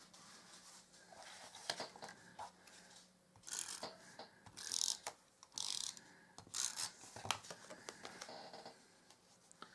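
Hands handling and sliding pieces of cardstock on a paper-crafting mat: light taps, then a run of five or so short rubbing, scraping strokes through the middle.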